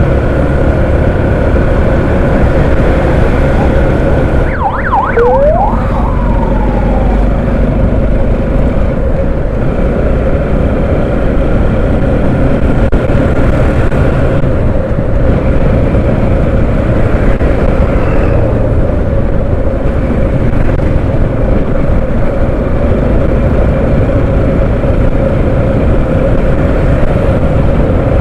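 Motorcycle running at road speed: a steady engine drone with wind rushing over the microphone. About five seconds in, a short wavering siren-like tone sweeps up and down a few times, then falls away.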